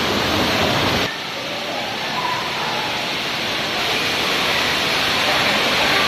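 Waterfall pouring down a rock face, a loud, steady rush of falling water with faint voices behind it. About a second in, the rush turns a little quieter and loses its low rumble.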